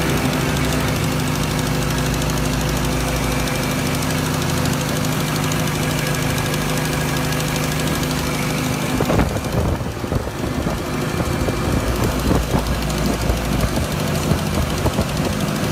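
Tractor engine running with a steady hum, its front-mounted hydraulic pump drive busted. About nine seconds in, an uneven knocking clatter sets in.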